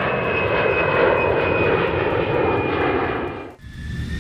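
Jet airliner engine sound effect: a steady high jet whine over a rush of engine noise, fading out about three and a half seconds in. Just after, another jet's whine starts up and rises in pitch.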